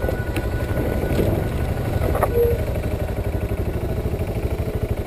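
Single-cylinder engine of a BMW G650 adventure motorcycle running under way on a rough dirt track, heard from on the bike as a rapid, even pulsing. A brief knock comes about two seconds in.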